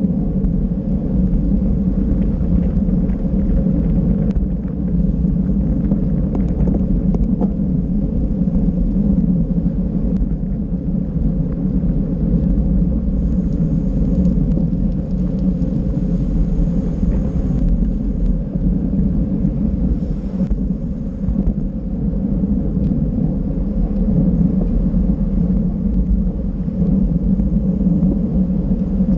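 Steady low rush of wind buffeting the microphone of a camera on a bicycle racing at speed, with a faint hum and a few light ticks.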